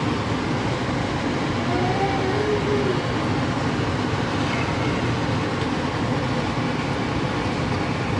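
Motorboat under way: a steady rushing noise of engine, hull and wind.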